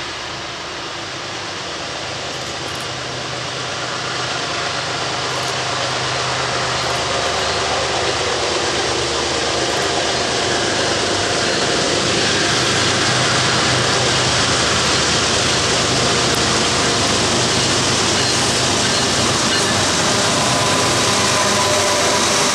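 Norfolk Southern GE diesel freight locomotives, with an ES44DC leading, running as they approach and draw level, growing steadily louder. Steady engine drone with rolling wheel and rail noise.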